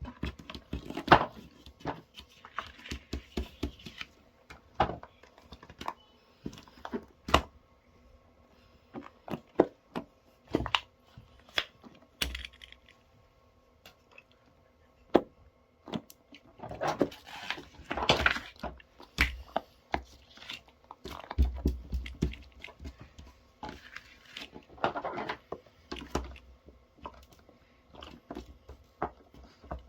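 Small plastic and silicone fidget toys being handled on a table: scattered taps and clicks, with a few longer stretches of rustling and rubbing, the longest about two-thirds of the way through.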